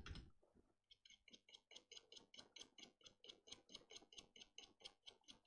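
Faint, quick, evenly spaced scrubbing ticks, about six a second, starting about a second in: a brush scrubbing a circuit board with isopropyl alcohol.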